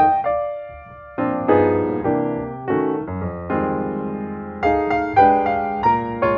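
Background piano music: a gentle tune of struck notes and chords, each fading after it sounds.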